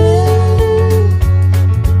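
Background music: electric guitar holding and bending a melody over a heavy bass line and a steady beat.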